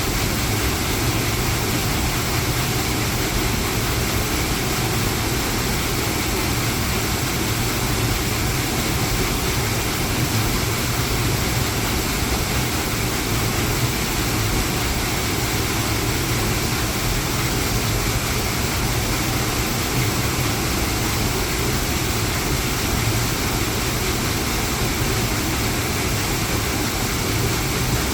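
Water wheel turning, with water pouring and splashing off it in a steady, unbroken rush and a low hum underneath.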